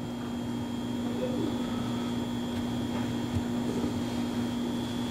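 A steady low hum with a faint, constant high whine above it.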